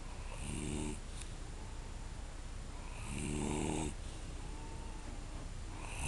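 A sleeping man snoring, one snore every two and a half to three seconds: two full snores and a third starting near the end.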